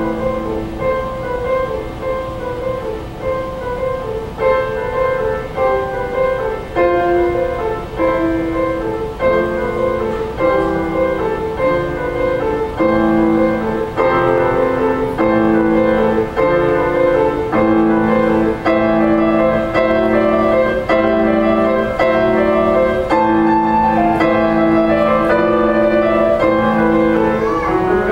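Grand piano played solo: a slow piece of held notes and chords, getting a little louder about halfway through.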